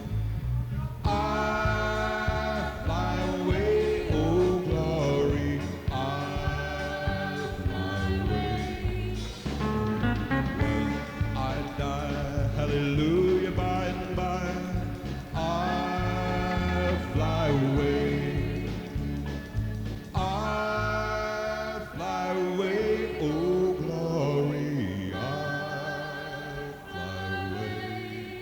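Live country band playing an instrumental break: drums and bass keep a steady beat while a guitar carries the melody, with some sliding notes.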